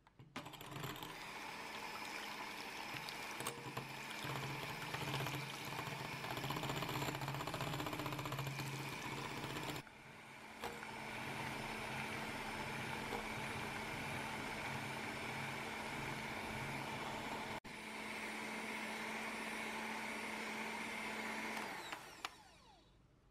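Bosch 350 W electric hand mixer running steadily, its beaters whipping egg whites and sugar into stiff meringue. The motor sound dips briefly near the middle and winds down with a falling pitch near the end.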